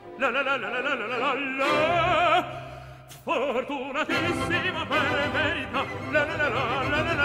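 Music: an operatic voice sings with wide vibrato over orchestral accompaniment, fading briefly and starting a new phrase about three seconds in.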